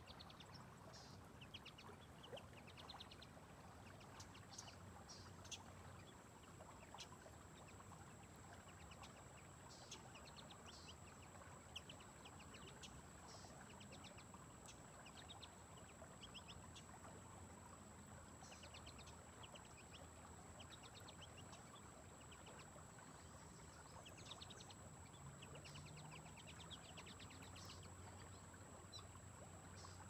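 Faint riverside ambience: small birds calling in short runs of quick, high chirps, repeating every few seconds, over a steady wash of background noise. A thin, constant high-pitched tone runs underneath.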